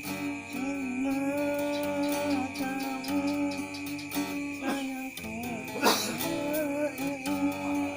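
A voice humming a wordless melody over steady backing music with some guitar. There is a short sharp knock about six seconds in.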